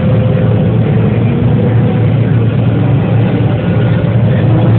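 John Deere 9770 combine running steadily while harvesting corn: an even, low engine and machinery drone heard from inside the cab.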